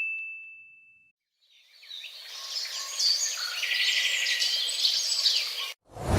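Birds chirping over a steady hiss, a stock nature sound effect. It opens with the ringing tail of a ding fading out and stops abruptly just before a loud, deep hit begins at the very end.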